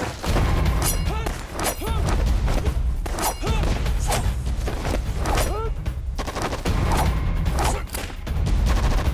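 Dense battle gunfire: a fast, continuous stream of rifle and machine-gun shots over a low rumble, with short rising-and-falling whines between the shots.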